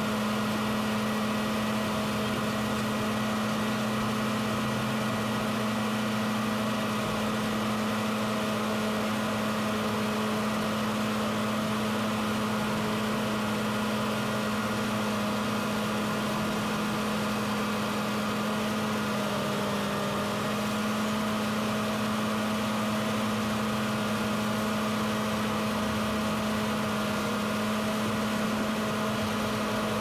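Diesel engine of heavy road-paving equipment running steadily at a constant speed, with a steady hum.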